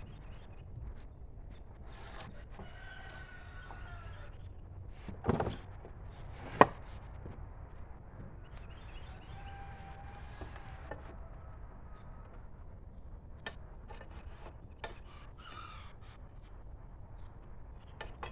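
Quiet workshop handling of wooden boards and screws, with a heavy knock about five seconds in and a sharp wooden clack a second later.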